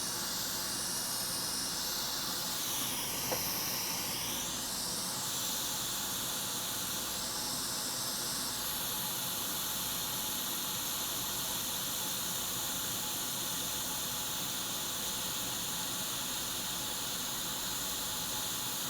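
Hot air rework station blowing a steady hiss of hot air, heating a chip off the iPad logic board to desolder it. The tone of the airflow shifts and sweeps during the first several seconds, then settles steady.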